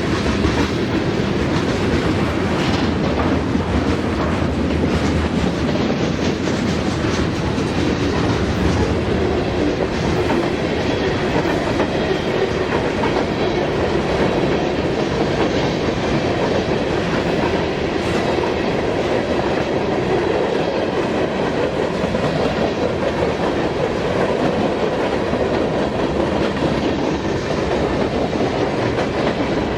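Norfolk Southern freight train's cars rolling steadily past, their wheels rumbling and clicking over the rail joints.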